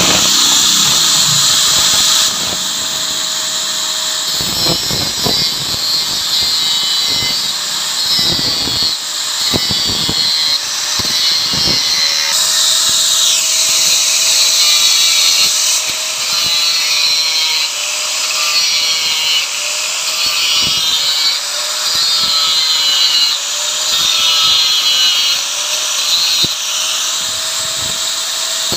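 Electric angle grinder running, its cutting disc grinding down the pulser bump on a Yamaha Mio's magneto flywheel rotor, metal on metal. The high grinding note rises and falls in repeated passes as the disc is pressed in and eased off. The bump is being cut back to change the ignition timing to suit a Shogun CDI.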